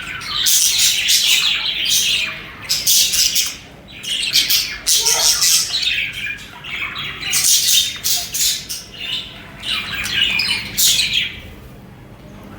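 Budgerigars chirping and chattering, in bursts of rapid high chirps and squawks with short lulls between them.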